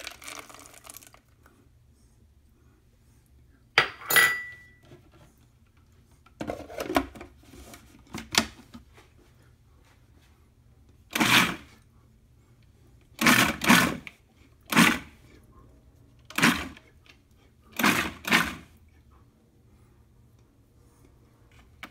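Food processor pulsed in a series of short bursts, a second or two apart and some in quick pairs, with whole peanuts clattering in the plastic bowl as they are chopped into the smooth peanut butter for crunch.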